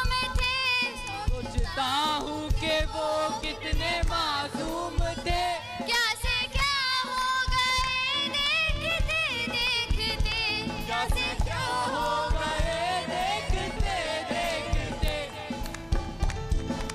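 A woman singing a slow, ornamented melody with heavy vibrato, over a steady beat of hand percussion.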